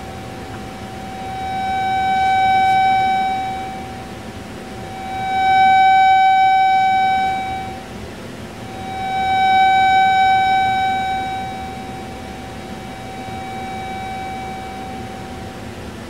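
Speaker playing a microwave receiver's signal as a steady tone at one pitch, over a constant hiss. The tone swells and fades three times, then more weakly a fourth: the receiver passing through the constructive (loud) and destructive (near-silent) zones of a two-horn microwave interference pattern.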